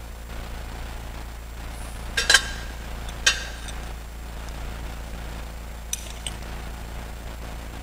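Sharp metallic clinks of a brass censer's lid and chains as it is handled for incensing: a close pair about two seconds in, another a second later, and two fainter ones about six seconds in. A steady low hum runs underneath.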